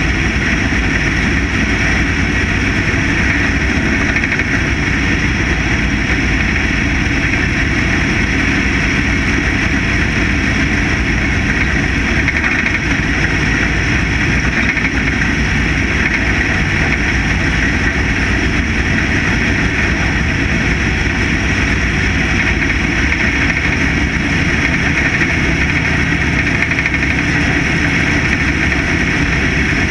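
Factory stock dirt-track race car's engine running hard at racing speed, loud and steady without a break, heard from a camera mounted on the car's hood.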